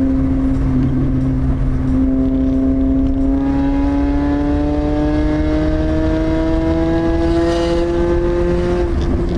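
Lada Priora's four-cylinder engine running with the muffler removed, a very loud exhaust note whose pitch climbs steadily as the car accelerates, after a short break about a second in.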